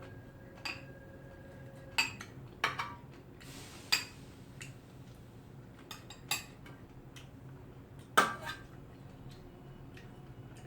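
Eating utensils clinking and scraping against bowls during a meal of crab soup: scattered sharp clinks, the loudest about eight seconds in, over a low steady hum.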